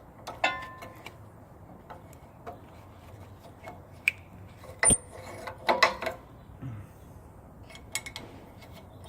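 Scattered metallic clicks and clinks of hand tools and parts while a new engine knock sensor is being fitted. One sharp click comes about five seconds in, followed by a short run of clinks.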